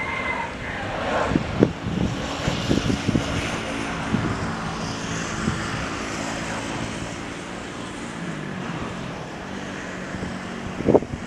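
Boeing 737 airliner's jet engines, a steady rushing noise as it passes low on landing approach, with wind knocking on the microphone a few times.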